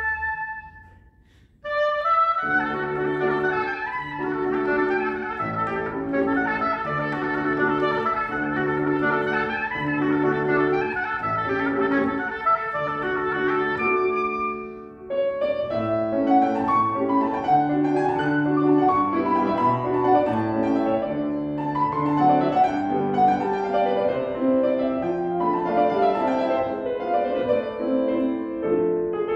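Clarinet and piano playing a classical fantasy. A quick falling run is followed by a pause of about a second, then a clarinet melody over a rhythmic piano accompaniment. After a short dip about halfway the piano plays on, and the clarinet has dropped out by near the end.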